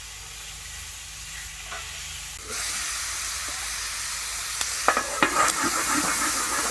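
Chicken frying on a flat-top griddle, a dense steady sizzle that starts suddenly about two and a half seconds in after a quieter stretch. A few sharp clacks come over it a couple of seconds later.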